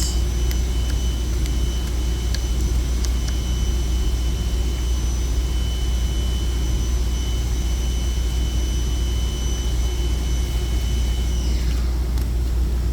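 Steady low hum with a high-pitched motor whine that winds down in pitch and fades about twelve seconds in, like a small electric motor spinning down after being switched off.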